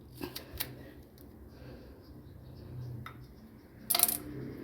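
Light clicks and clinks of small hard kitchen items being handled and set down, with a short cluster of louder clatter about four seconds in.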